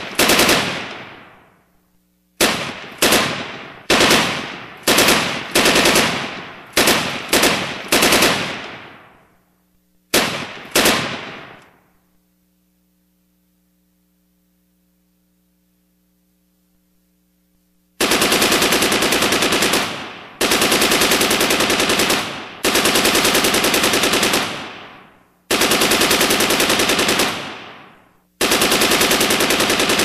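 Gunfire sound effects. First about a dozen single shots and short bursts, each fading out in a long echoing tail. Then, after about six seconds of silence, five long bursts of automatic machine-gun fire of two to three seconds each.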